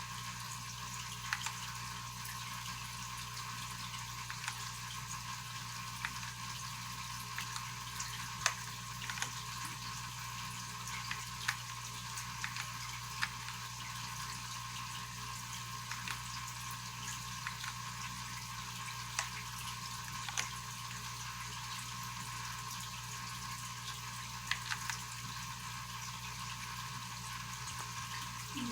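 Steady hiss with a low electrical hum under it, broken by faint, sharp clicks every second or two.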